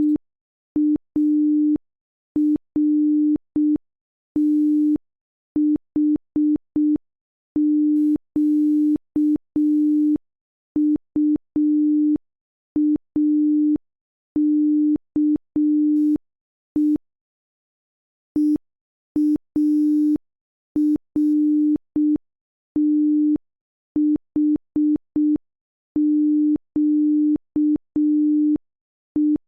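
Morse code sent as a low sine tone, keyed slowly in short dots and longer dashes with gaps between letters, and a faint click at each start and stop; the code spells out the word EARTHQUAKE.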